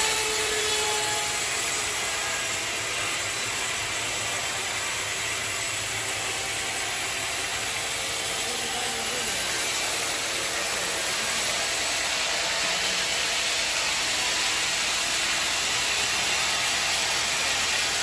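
Sawmill band saw running and cutting lengthwise through a thick teak beam: a steady, hissing sawing noise from the blade in the wood over the hum of the machine.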